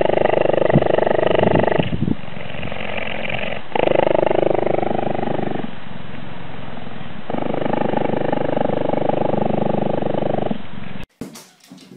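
Cheetah purring while being stroked, a continuous rapid pulsing rumble that swells and eases in turn every couple of seconds. It cuts off abruptly about a second before the end.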